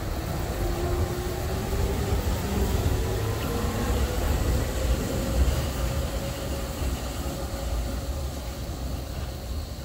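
Hong Kong Peak Tram funicular car running on its rails: a steady low rumble with a whine that rises in pitch over the first several seconds, then holds steady as the car reaches speed.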